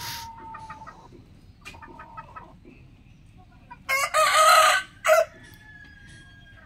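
Rooster crowing once, about four seconds in: a loud crow of just over a second, ending in a short separate final note.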